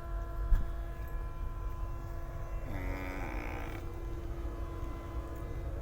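A man snoring: one pitched, calf-like moan that falls slightly and lasts about a second, about three seconds in. It sits over the steady low rumble of a train carriage, with a brief click about half a second in.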